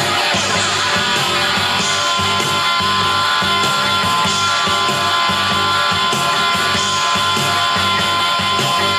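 Instrumental break of a blues-rock song: a steady band groove with a lead line holding long notes over it.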